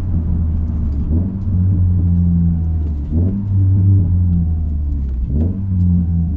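Subaru Legacy's engine heard from inside the cabin, its pitch jumping up in three quick throttle blips about one, three and five seconds in. These are rev-matched heel-toe downshifts under braking, taking the car down through the gears to first.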